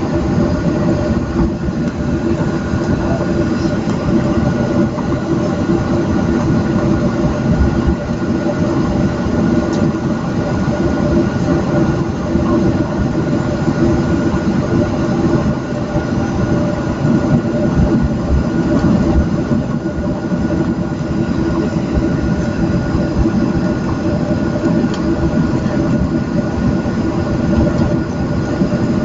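Cabin noise of a Boeing 737-700 taxiing: the CFM56 turbofans hum steadily at low thrust, with several steady tones over an uneven low rumble from the wheels rolling on the taxiway.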